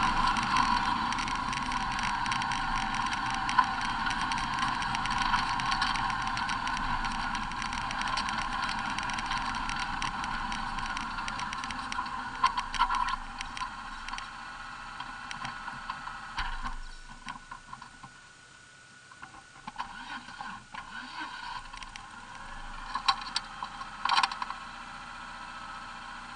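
Race car's engine heard from an onboard camera, running as the car slows and settles to idle. The level drops about 17 seconds in, and a few sharp clicks and knocks come near the end.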